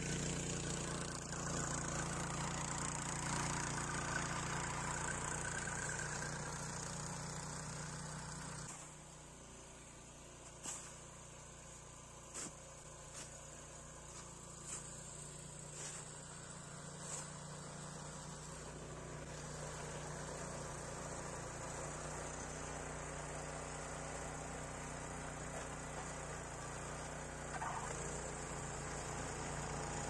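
Walk-behind snowblower engine running steadily while throwing snow. About nine seconds in it drops much quieter, and a handful of sharp knocks come over the next several seconds. The engine then grows louder again toward the end.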